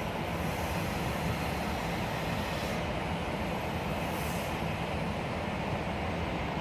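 Distant airliner on approach: a steady low jet rumble, with a faint high whine in the middle.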